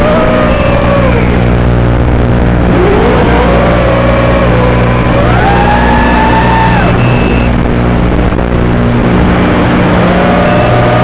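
FPV quadcopter audio from the camera's microphone, carried over the video transmitter link: a loud, steady electrical buzz with the motors' whine rising and falling in pitch over it. The buzz is the uploader's 'background noise', caused by the video transmitter sending mono audio to a FatShark receiver that expects stereo.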